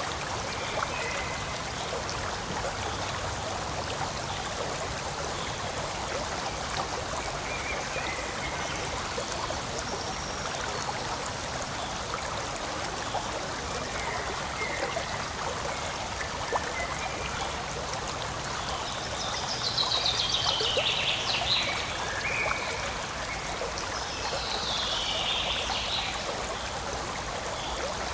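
Forest stream running steadily, water trickling and gurgling over stones. Short high chirps come through a few times, loudest about two-thirds of the way in and again near the end.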